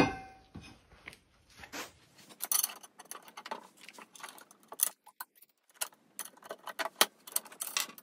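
A sharp knock that rings briefly, then from about two seconds in a long run of light clicks and clinks of small metal parts and tools being handled during kit assembly.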